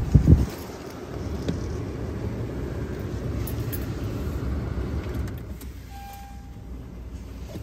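Honda Ridgeline's 3.5-litre V6 idling on a remote cold start, heard from inside the cab with the climate fans blowing. There is a thump right at the start, the rumble eases about five seconds in, and a faint short beep comes around six seconds.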